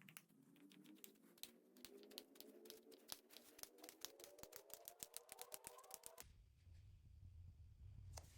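Faint, rapid, irregular clicking and crackling of slime being squished and mixed, stopping suddenly about six seconds in. Under the clicks a faint tone rises steadily in pitch.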